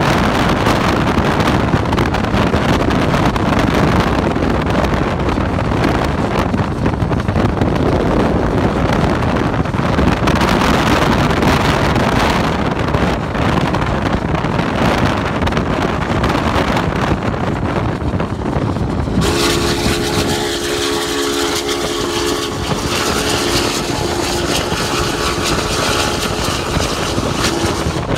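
Wind and road noise of a moving car, a steady rushing rumble. About two-thirds of the way in, the rumble thins and a steady chord of several close tones comes in and holds to the end.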